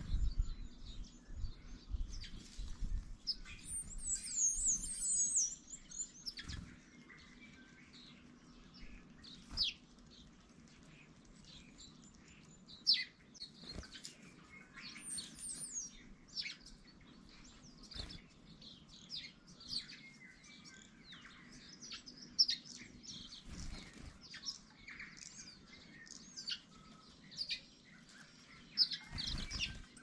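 A chorus of garden birds (starlings, quail, tūī, waxeyes and house sparrows) chirping and calling over one another in many short calls, with a dense, high chattering trill about four seconds in and again midway. Some low thumps and rustles in the first few seconds.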